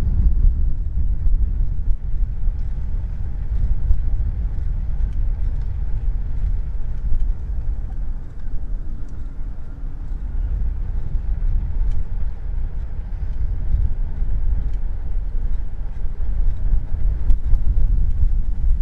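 Wind buffeting the microphone of a camera riding on a moving bicycle: a loud, steady low rumble that rises and falls a little with the gusts, with a few faint clicks.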